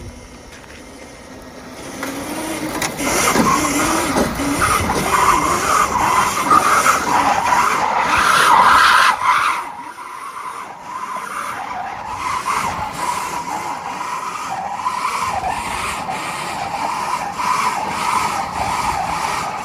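Tyres squealing and scrubbing on pavement under an electric Formula Student race car driven hard. It is loud for several seconds and eases off somewhat about ten seconds in, then carries on at a lower level.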